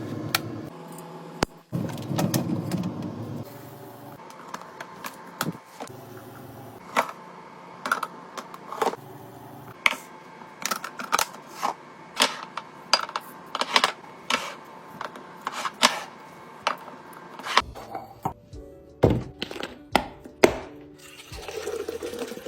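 Background music with many sharp clicks and knocks, from containers and packaging being handled and set down while a fridge is restocked.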